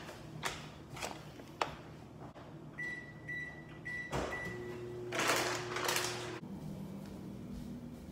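Microwave oven keypad beeping, about five short beeps at one high pitch as the buttons are pressed, then the microwave starts running with a low steady hum that stops about two seconds later. A louder burst of noise sits over the hum, and a few light clicks and knocks come before the beeps.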